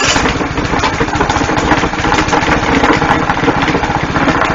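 Single-cylinder 7 HP overhead-valve engine running at a steady speed with its muffler refitted, a close, even train of firing pulses. The sound comes in abruptly at full loudness.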